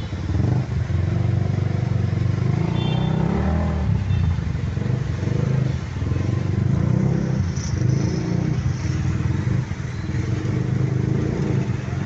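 Motorcycle and car engines running in slow traffic: a steady low engine drone.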